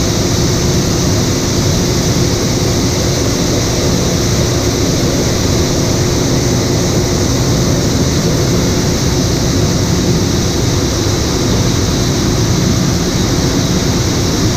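Harvest machinery running steadily under load during corn harvest: a loud, unchanging drone with a constant hum and a high hiss.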